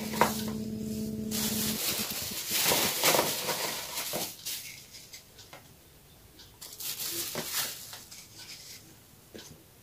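Soft handling sounds as biscuits are picked out of a plastic bag and laid onto cream in a glass baking dish: light rustling and taps that fade after about four seconds. A short steady hum sounds in the first two seconds.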